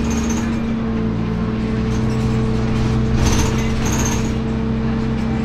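Inside the cabin of a Dennis Dart SLF single-deck bus under way: a steady engine drone with road and tyre noise. Short high-pitched squeaks and rattles from the body come now and then, loudest about three seconds in.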